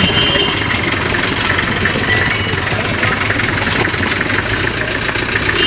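A vehicle engine running steadily at low speed, close by.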